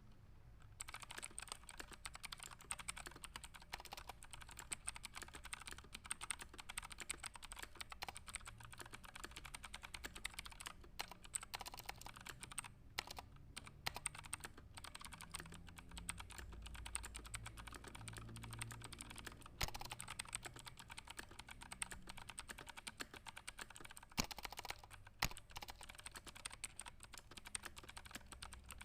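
Fast typing on a computer keyboard: a dense stream of key clicks that starts about a second in, broken by a few short pauses, with an occasional louder keystroke standing out.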